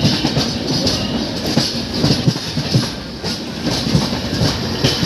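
Express passenger train rolling on the track, its coach wheels clattering over the rails with many irregular knocks over a steady rumble.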